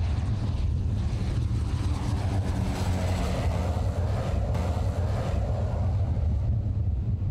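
Let L-410 Turbolet twin-turboprop aircraft flying low past, its engine and propeller noise strongest in the middle, over a heavy wind rumble on the microphone.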